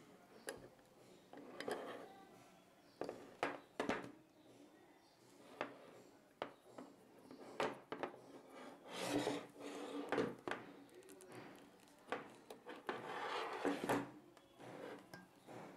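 Stanley heavy-duty hand riveter being handled on a tabletop: a series of sharp metal clicks and knocks as it is turned over and its handles moved, with two longer stretches of rubbing and scraping in the second half.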